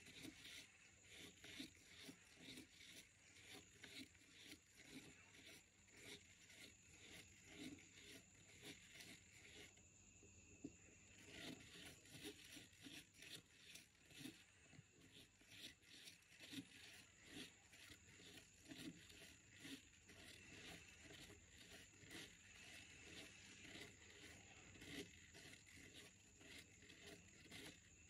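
Pen tip scratching across paper while a plastic Spirograph gear is rolled round inside its toothed ring: faint, uneven rubbing and scratching strokes in quick succession, with a brief pause about ten seconds in.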